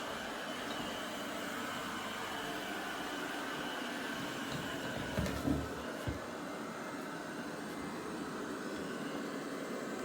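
eufy RoboVac 11S Max robot vacuum running steadily with an even whirring hum, with a few low thumps about five to six seconds in.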